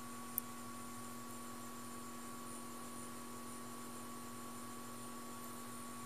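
Steady electrical hum over faint hiss, with one short click about half a second in.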